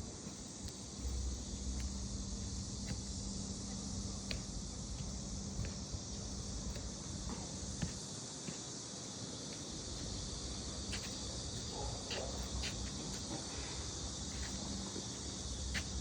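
Steady high-pitched insect chorus over a low steady hum, with scattered faint ticks.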